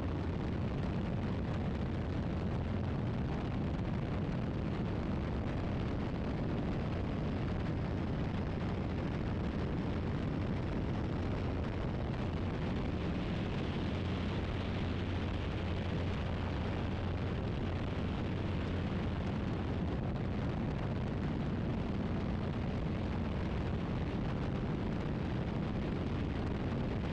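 Open-cockpit biplane in takeoff and climb: its engine and propeller run steadily under heavy wind rush over the microphone, an unbroken roar with a strong low hum.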